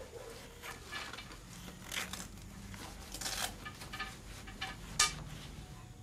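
Faint rustling and scratching of cloth and thread as hands pull the width-setting threads out of the end of a handwoven rebozo, with scattered light clicks and one sharper click about five seconds in.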